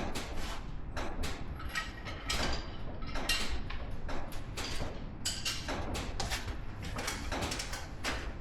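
Metal hand tools and brake parts clicking, knocking and scraping in an irregular run of sharp knocks, some with a brief metallic ring, as a truck's front brake and hub assembly is taken apart.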